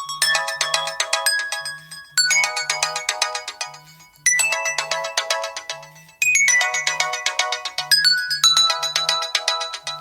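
Nokia 113 mobile phone playing one of its built-in ringtones through its loudspeaker: a looping electronic melody of quick bell-like notes, the phrase restarting about every two seconds.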